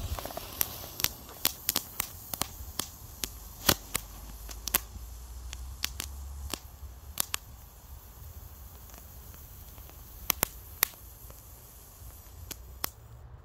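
Miniature firework fountains burning with a faint steady hiss and about twenty sharp, irregular crackling pops. The hiss stops near the end as the fountains burn out.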